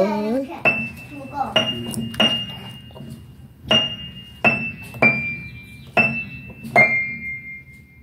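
Upright piano: single notes struck one at a time by a young child, about eight in all, unevenly spaced and each left to ring and fade.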